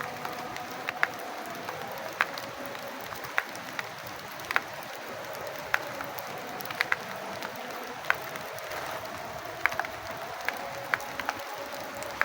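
Steady rain hiss with heavy drops ticking sharply and irregularly, about one a second, as water drips off a hut roof.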